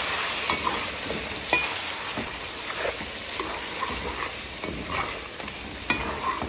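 Chicken pieces and spices frying in hot oil in a metal pot, sizzling steadily while a metal spoon stirs them, with scattered scrapes and clicks of the spoon against the pot. This is the stage where the spiced chicken is stirred until the oil separates.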